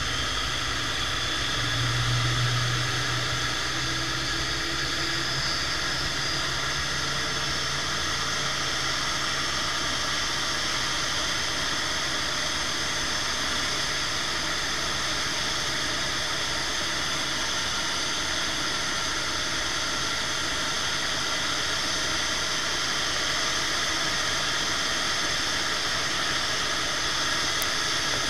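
Airbus A350-900's Rolls-Royce Trent XWB jet engines running with a steady high-pitched whine and hiss during pushback. A low hum swells briefly about two seconds in.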